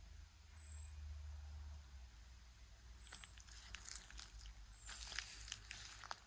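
Footsteps crunching over loose ground: irregular crackly steps that start about two seconds in, over a low rumble.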